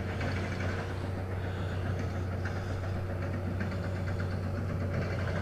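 Steady, unbroken low drone with even background noise and no clear events.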